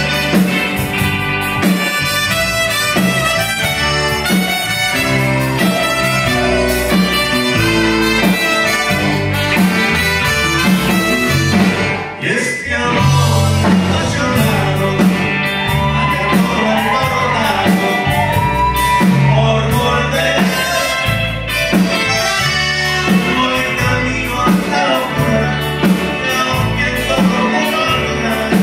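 Tex-Mex band playing live: accordion with electric guitar, bass and drums over a steady beat.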